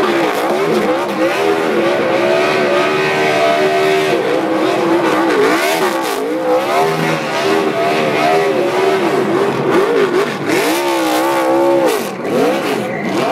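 NASCAR stock car's V8 engine revving hard while spinning donuts in a tyre-smoke burnout. The engine pitch keeps climbing and falling as the throttle is worked. There is a brief dip about twelve seconds in.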